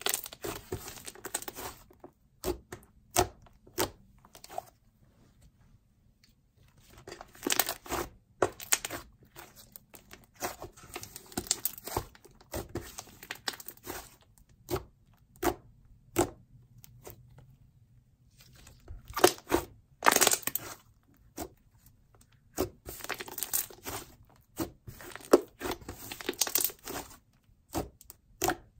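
Brown clay slime being squished, stretched and poked by hand: irregular sticky crackles and small pops in bursts, with short quiet pauses between.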